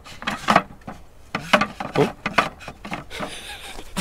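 Wooden shelf parts knocking and rubbing together as a slatted wooden camping shelf is fitted together by hand: a run of irregular knocks.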